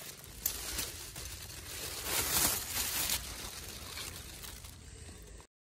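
Rustling and crinkling of eggplant leaves and stems brushing close to the phone as it moves through the plants, loudest about two to three seconds in; the sound cuts off suddenly near the end.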